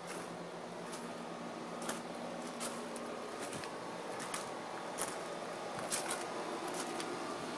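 Footsteps crunching on loose decorative gravel at a walking pace, about one step a second, over a steady mechanical hum.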